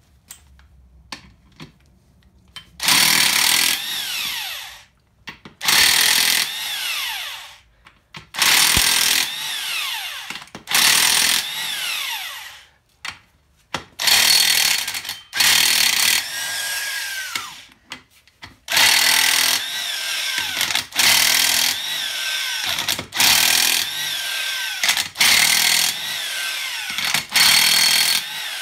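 Power impact wrench with a 5/8 socket running in repeated bursts of one to two seconds, about a dozen in all, spinning out the bearing cap bolts on a 7.3 IDI diesel engine block.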